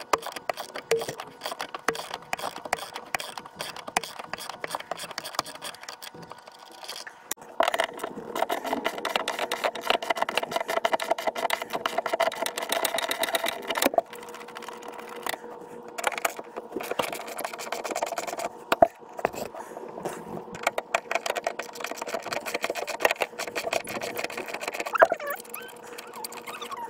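Socket ratchet wrench clicking in long rapid runs, loosening the bolts that hold a van's passenger seat to its base.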